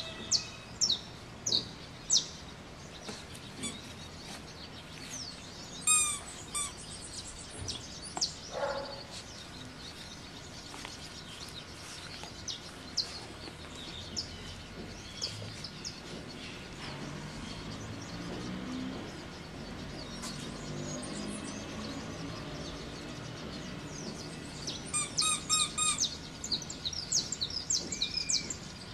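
Wild birds chirping: scattered short high calls, with quick runs of repeated notes about six seconds in and again near the end. A faint low hum sits under them partway through.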